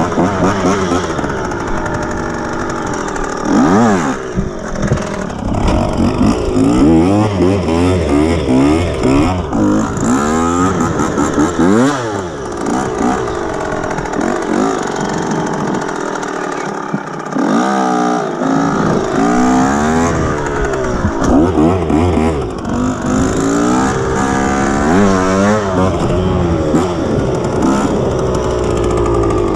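Enduro dirt bike engine heard from on board, revving up and falling back again and again as the bike accelerates, shifts and slows.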